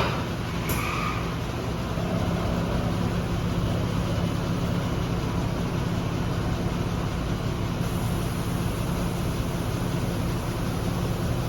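Steady low hum with a constant rushing noise, like a running motor or engine nearby, with a brief click at the very start.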